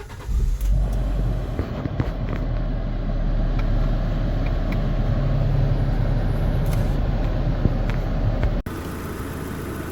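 2017 Fiat 500's engine running at idle, a steady low rumble, while its air conditioning runs on full to take a refrigerant re-gas. The sound breaks off suddenly near the end and resumes as a quieter steady idle.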